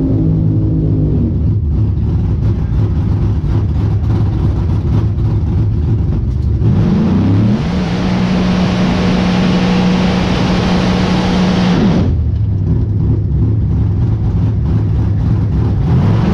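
Pro Outlaw 632 drag car's 632-cubic-inch V8 heard from inside the cockpit: it is idling with a heavy rumble, then revved up about six seconds in and held at high, steady revs for about five seconds with loud hiss from the spinning rear tyres during the burnout. It then drops sharply back to idle and starts to rev again near the end.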